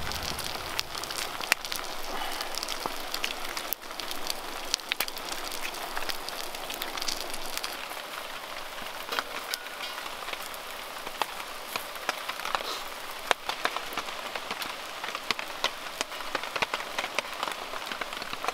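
Steady rain falling, a constant patter with many small drops ticking sharply.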